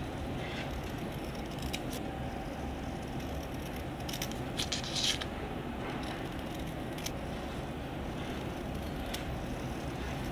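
Scissors snipping through a stack of printed paper pages in a few separate cuts, with a louder run of snips about halfway through, over a steady low background noise.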